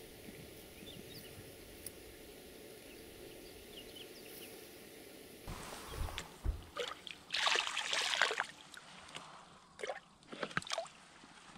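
A plastic bucket is dipped into shallow water at the bank, and the water sloshes and splashes in irregular bursts, loudest a couple of seconds after it starts. Before that there is a steady outdoor background with faint high chirps.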